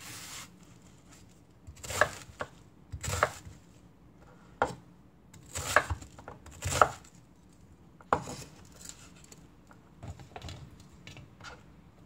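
Chef's knife cutting half an onion into chunks on a wooden cutting board: separate chops at irregular intervals, each a sharp knock of the blade on the board, with softer knocks near the end.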